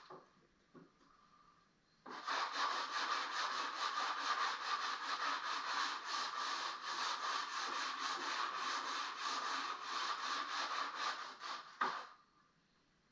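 Sanding old paint and finish off a wooden fireplace mantel: rapid rhythmic back-and-forth rubbing strokes, about four a second, starting about two seconds in and stopping sharply near the end, muffled by the camera's housing.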